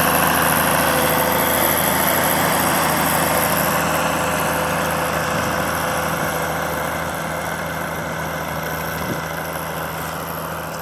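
International 844 XL Special Six tractor's six-cylinder diesel engine running steadily while pulling a plough through the soil, fading gradually as the tractor moves away.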